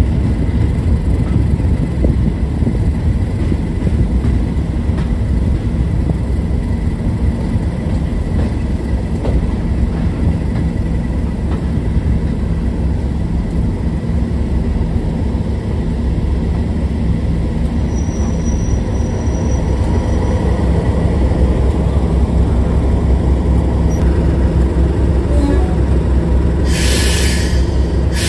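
Class 37 diesel locomotive 37075's English Electric V12 engine running with a steady low drone as it hauls the train, along with the rumble of the coaches on the track. A short high-pitched burst of noise comes near the end.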